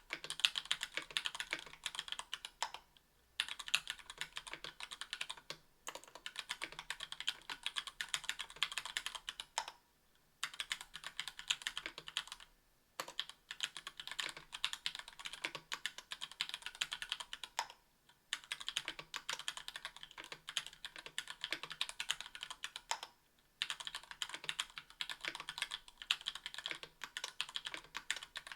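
Fast typing on a KBDfans Tofu 60% aluminium-case mechanical keyboard with stock Gateron Yellow Ink linear switches and GMK keycaps: a rapid stream of keystroke clacks, broken by a brief pause every few seconds.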